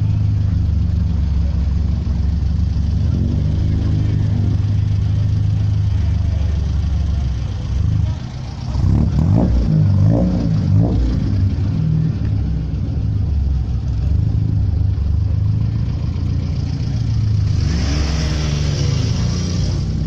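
Rally car engines idling with a deep, steady rumble; about eight seconds in, one engine is revved in a few quick blips that rise and fall.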